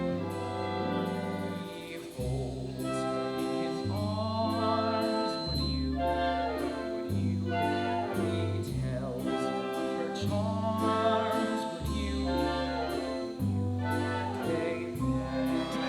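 Orchestral stage-musical music with voices singing, over slow bass notes that change about every two seconds.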